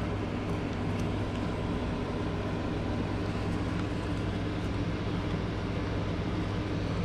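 Steady low machine hum over an even hiss, unchanging.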